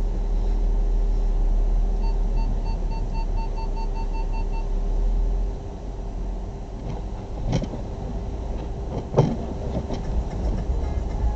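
Inside a car's cabin, the engine rumbles steadily while the car sits still and then pulls away slowly. About two seconds in comes a run of quick electronic beeps, roughly four a second for nearly three seconds, and later there are two sharp knocks.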